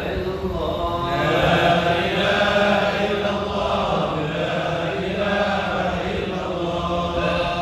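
A congregation chanting Arabic dhikr in unison, with long drawn-out melodic phrases.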